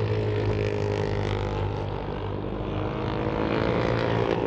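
Race motorcycle engines running at high revs as the pack rides on through the corner: a steady, many-toned engine note with no impact sounds standing out.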